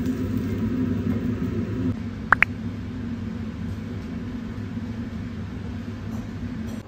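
Steady low rumble, like a vehicle in motion, with two short high beeps about two and a half seconds in.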